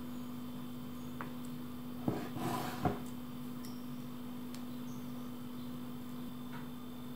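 Steady low electrical hum, with a short patch of soft scraping and clicks about two to three seconds in as a spoon scoops thick muffin batter and drops it into paper cases in a metal muffin tin.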